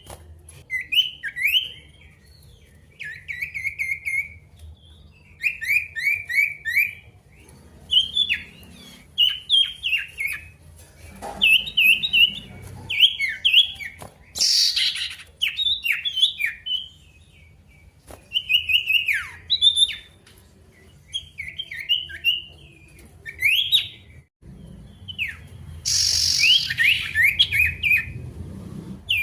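Male sirtu songbird singing energetically in short, repeated phrases of quick chirpy notes, one phrase every second or two: the lively 'gacor' song used to provoke rival males into singing.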